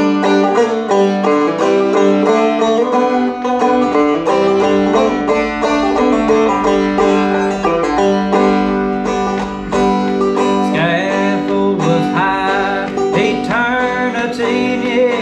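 Five-string resonator banjo played clawhammer style in open G tuning: a steady run of plucked notes carrying the melody in an instrumental break between sung verses.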